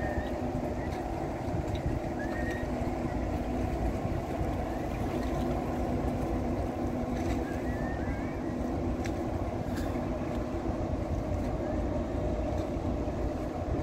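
Steady low hum of a passing Stena Line ferry's engines, over wind rumbling on the microphone, with a few faint high chirps.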